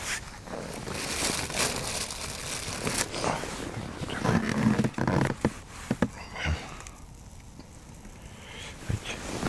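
Plastic food packaging crinkling, scraping and tearing as a pack of shpik is handled and opened, in irregular rustles over the first six seconds, then quieter.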